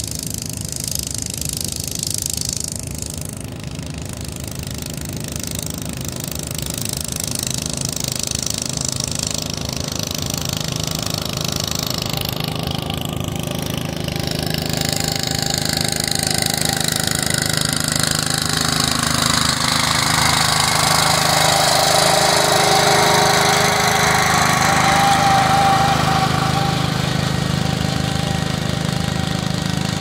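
Wheel Horse garden tractor engine running steadily under load while pulling a plow through the soil. It grows louder as the tractor approaches, is loudest about two-thirds of the way through, and a higher whine joins in the second half.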